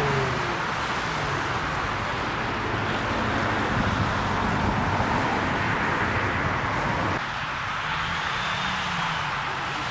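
Steady rushing outdoor noise of wind on the microphone mixed with vehicle engine sound, easing slightly about seven seconds in.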